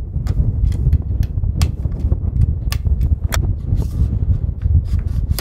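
Steady wind rumble on the microphone, with many light scattered clicks and knocks from the rifle being handled on the bench. No shot is fired.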